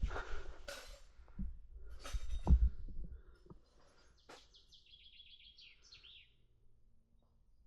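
Rustling and knocking close to the microphone in two bursts over the first three seconds. A songbird then sings one quick trilled phrase of repeated high notes that ends in a short flourish.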